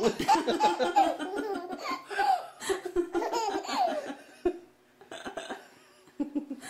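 A baby laughing: a long run of quick, high-pitched laughs for about four and a half seconds, then a few fainter laughs near the end.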